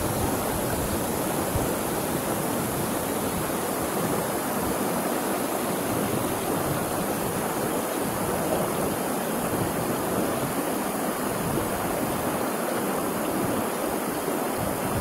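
River water rushing steadily over a low rocky cascade, close by, with an even, unbroken churning sound.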